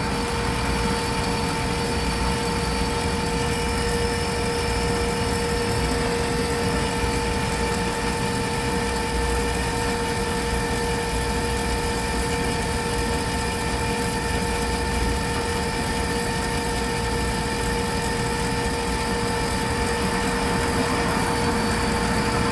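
AirDog II-4G DF-165 fuel lift pump's brushed DC electric motor running with a steady, even-pitched hum. Underneath it is a low rumble of road noise.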